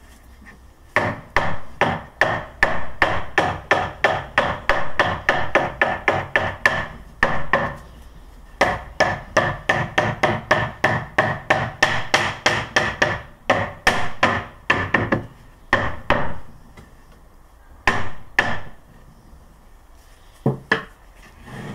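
Rubber mallet knocking beehive panels together into their slots: a fast run of taps about four a second, broken by a short pause about seven seconds in, then a few single blows near the end.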